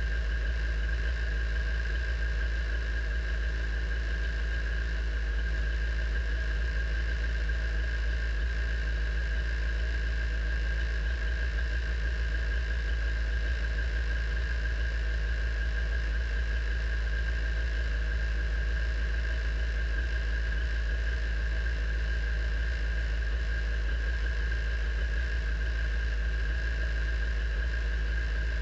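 Radical race car's engine idling steadily in neutral, heard from the cockpit, with a steady high-pitched whine running alongside the idle.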